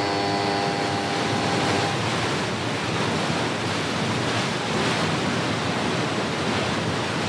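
Water rushing and churning into a canal lock chamber, foaming against the gate beside an inland barge's bow as the lock fills. A horn's steady tone fades out about two seconds in.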